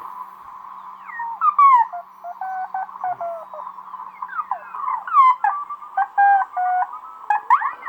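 Morse code beeping in short on-off tones over a steady hiss, while a puppy whines and howls along in rising and falling cries, loudest about a second and a half in and again around five seconds.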